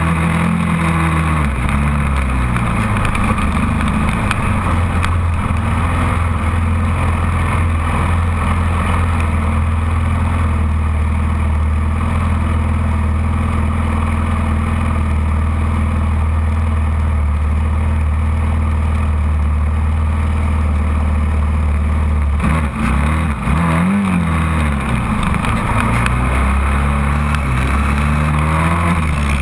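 Sport quad (ATV) engine running hard under load on sand. It holds a steady pitch for most of the time, then a little over 20 seconds in the throttle comes off and back on and the pitch dips and rises.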